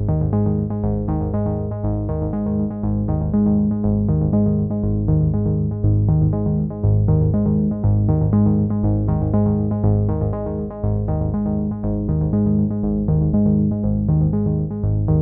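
Background music: a tune with a steady rhythm of repeated notes.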